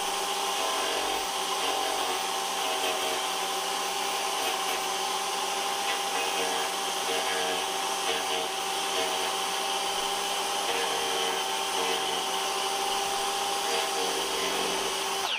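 Electric power carving tool running at a steady speed with a constant whine, cutting into wood, then switched off near the end.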